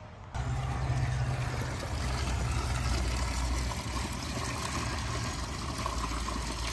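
Dirty water from a CNC plasma table's water tray gushing out of a PVC drain pipe and splashing onto wet ground, with a steady low rumble underneath. It starts suddenly about a third of a second in.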